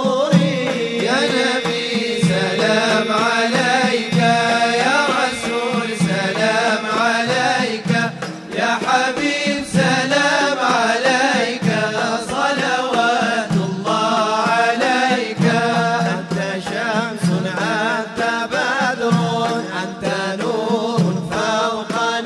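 Male vocal ensemble singing an Arabic devotional hymn (inshad) together, the melody ornamented and wavering, over a low regular beat.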